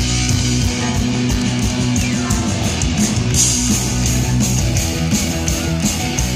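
Live rock band playing at full volume: electric guitars over a steady beat, as heard from the crowd in the concert hall.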